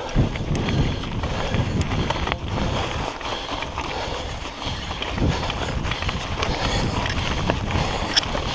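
Mountain bike rolling over loose gravel and rock, picked up by a camera on the rider: tyres crunching and the bike rattling, with scattered clicks and knocks over a rush of wind on the microphone.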